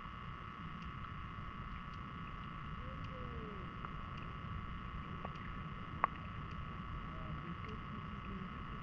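Muffled underwater ambience of a river, picked up by a GoPro Hero 10 inside its waterproof housing: a steady low rumble with a constant hum over it, and one sharp click about six seconds in.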